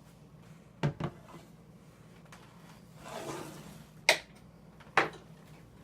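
A few sharp knocks and clunks of things being handled and set down: a pair close together about a second in, then single ones about four and five seconds in, with a brief soft swish between them.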